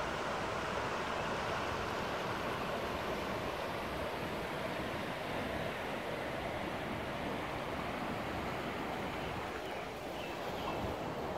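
River water flowing over shallow riffles, a steady, even rush.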